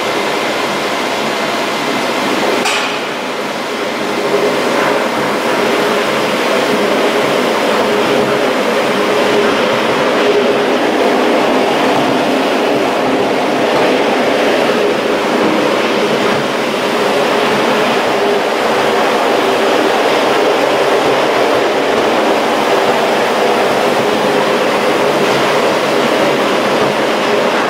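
Gateway Arch tram capsule running along its track inside the arch leg, heard from inside the capsule: a steady mechanical rumble with a faint hum in it. A single sharp click comes about three seconds in.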